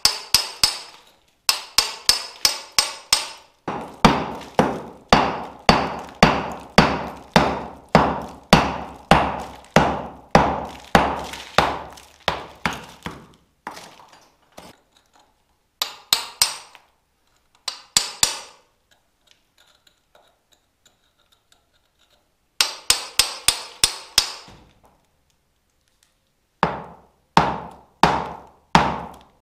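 Hammer blows struck repeatedly: quick runs of about five blows a second alternate with steady strokes at about two a second, with short pauses between runs.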